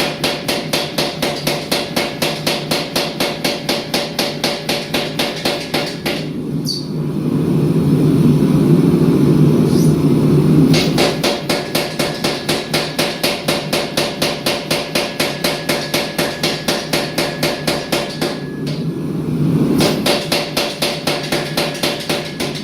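Hammer blows on steel, struck in a fast, even rhythm of about four a second while a Damascus billet is forged, in three runs broken by two pauses. During the pauses a steady low rushing noise is louder.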